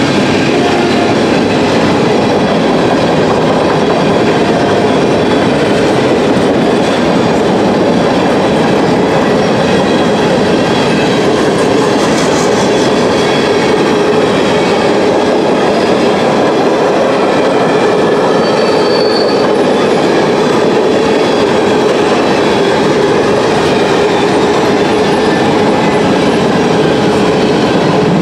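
Freight cars rolling past at a grade crossing: a loud, steady rumble of steel wheels on the rails with clattering over the rail joints, and a brief high squeal about two-thirds of the way through.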